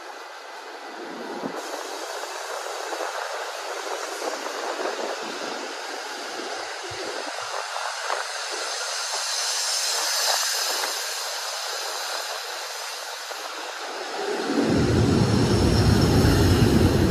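Ex-Tokyo Metro 6000 series electric commuter train moving along the platform, its running noise of motors and wheels on rail growing steadily louder as it gathers speed. A loud low rumble comes in for the last few seconds.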